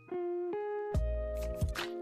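Background music: a melody of plucked notes with a light beat.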